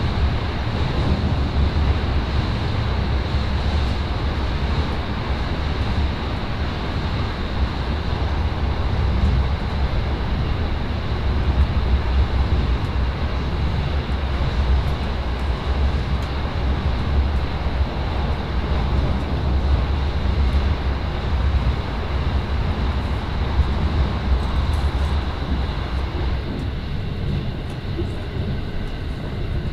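Steady, heavy rumble of an electric commuter train running at speed, heard from inside the car, as its wheels roll over the rails of a steel truss bridge. The higher part of the noise eases slightly near the end.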